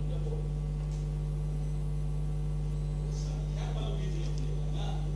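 Steady electrical mains hum in the recording, with faint voices murmuring in the background.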